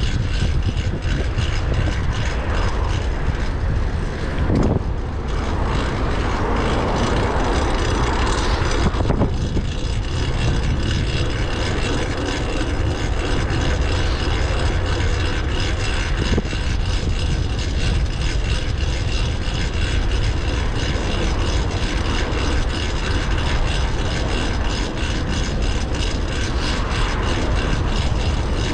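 Wind rumbling on the microphone while riding a fixed-gear bike, over a steady whine from the drivetrain running on a new cog, which the rider calls loud. A louder rushing swell rises and falls a few seconds in.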